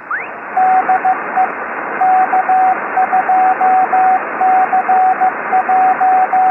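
Morse code (CW) heard on a shortwave receiver: a single mid-pitched tone keyed in dots and dashes over steady, narrow-band receiver hiss. A brief rising whistle sounds at the very start.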